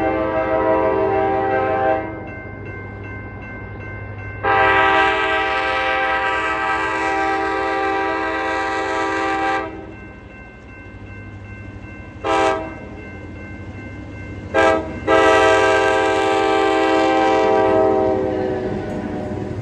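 Locomotive multi-chime air horn sounding a chord in long blasts, with two short toots between them, over a steady low rumble.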